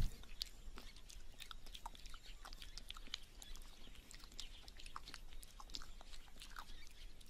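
Female red kangaroo licking the inside of her pouch: faint, scattered mouth clicks and smacks.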